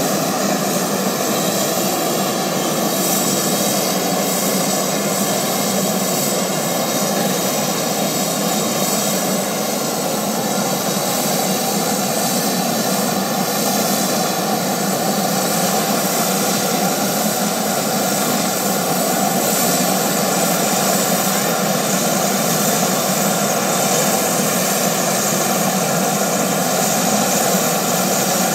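V-22 Osprey tiltrotor on the ground with a turbine running steadily, an even loud rush with a faint whine, while its rotor blades fold up for stowage.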